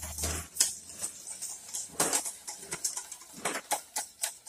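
Wire whisk beating a thin egg, yogurt and milk quiche filling in a stainless steel bowl: quick, irregular strokes of the whisk swishing through the liquid and clicking against the metal bowl.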